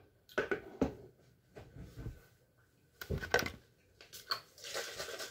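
Small objects handled and set down on a bathroom countertop: a few sharp knocks and clatters. Near the end comes a rustling scrape as a perfume bottle is drawn out of its pink cardboard box.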